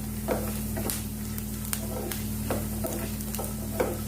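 Coconut pieces, cashews and raisins sizzling as they fry in ghee in a pan, with a spoon stirring and scraping the pan in repeated strokes. The coconut is near the end of frying, turning brown.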